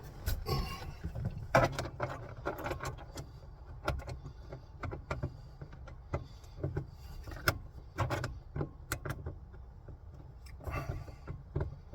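Irregular light clicks and taps, about one to three a second, as a screwdriver and a small screw are handled against a truck's plastic overhead console, over a low rumble.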